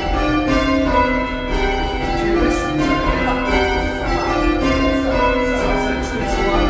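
Tower bells being change rung: a ring of church bells struck one after another in a steady, continuous sequence, their tones overlapping, with the ringers pulling the ropes.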